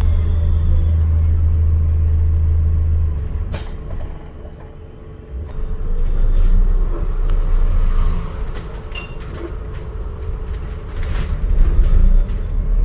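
ADL Enviro400 MMC hybrid double-decker bus heard from on board: a loud low drone stops about three seconds in, a short sharp sound follows, and after a quieter stretch the low rumble starts again about five and a half seconds in. A steady mid-pitched whine runs under it throughout.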